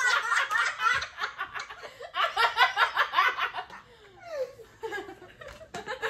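Several people laughing together in quick, pulsing bursts. The laughter dies down about four seconds in, and a few quieter giggles follow.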